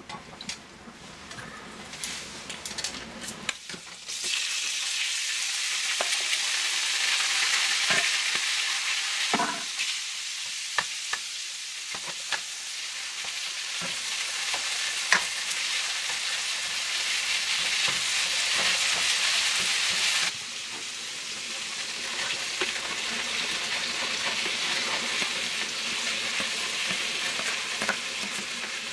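Food sizzling in hot oil in a pan, starting suddenly about four seconds in and easing a little about twenty seconds in, with occasional sharp clicks of a utensil against the pan. Before the sizzle there are only scattered light clicks and taps.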